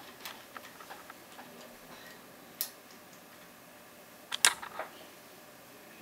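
Light metallic clicks and taps of a tension wrench and pick being handled and slid into the keyway of a Vachette V6 radial cylinder, with a sharper click about two and a half seconds in and a louder cluster of clicks about four and a half seconds in.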